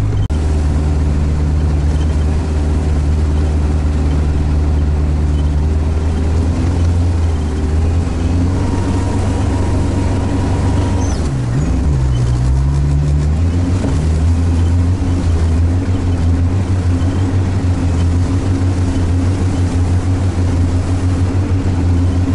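Diesel engine of an all-terrain vehicle droning steadily, heard from inside its cab while driving over tundra. About eleven seconds in, the engine note dips briefly and picks back up.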